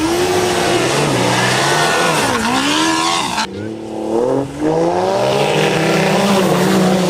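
Engine revving hard, its pitch climbing and falling again and again over a steady hiss. It eases off briefly about three and a half seconds in, then climbs again.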